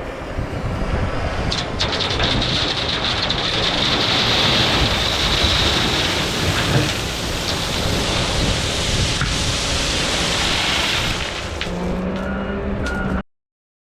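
Loud, continuous rushing and rumbling noise from rock-hauling work with heavy equipment, with scattered clicks and knocks. A steady low hum comes in near the end, and the sound then cuts off suddenly.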